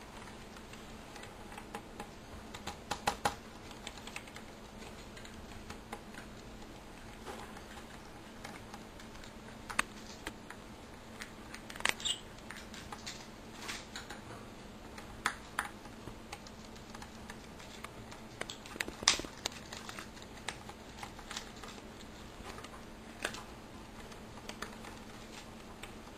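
Irregular light taps and clicks of budgerigars' beaks and feet on a tabletop and a TV remote, the loudest tap about two-thirds of the way in.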